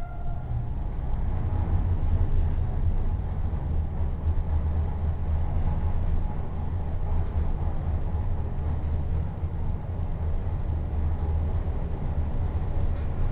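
Original 1970s Otis lift car travelling upward: a steady low rumble that builds over the first couple of seconds as the car gets up to speed, then holds.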